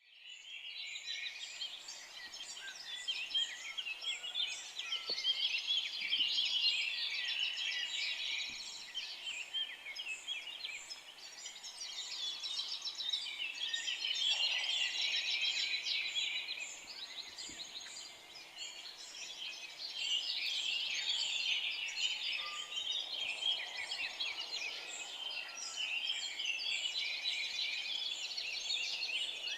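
A chorus of many songbirds singing and chirping at once: dense, overlapping short chirps and trills, high-pitched, swelling and thinning every few seconds.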